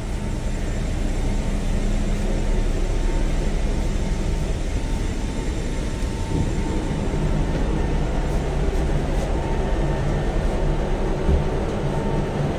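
Steady low rumble and hum of a cargo ship's machinery under way, with one short knock near the end.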